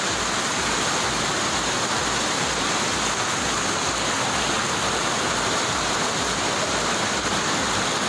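Steady rush of water from a tiered waterfall cascading over rock ledges into pools.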